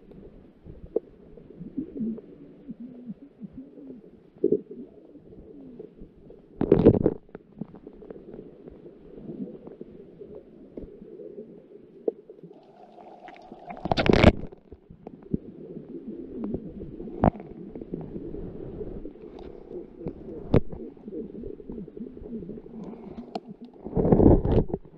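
Muffled underwater rumble heard through a GoPro Hero 7 Silver held by an octopus, with small scrapes and clicks and three loud knocks as the octopus's arms grip and drag the camera, the last knock near the end as it is pulled against rock.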